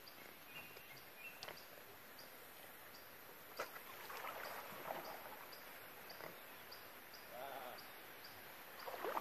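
Canoe being paddled on a calm river: paddle strokes swishing through the water, with a sharp knock on the hull about a third of the way in. Underneath runs a faint high chirp repeating about twice a second.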